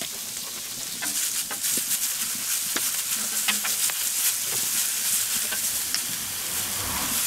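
Diced bacon sizzling on a very hot wood-fired steel fire plate, with a metal spatula scraping and clicking on the steel as it pushes the bacon around. The sizzle grows louder about a second in.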